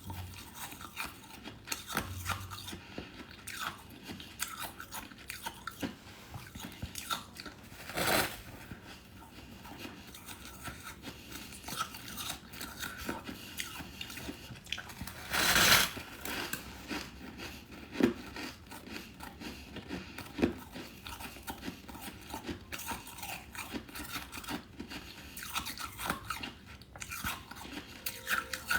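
Chunks of hard freezer frost being bitten and chewed, crisp and crunchy, with a steady crackle of small crunches and a few louder bites, the loudest about halfway through.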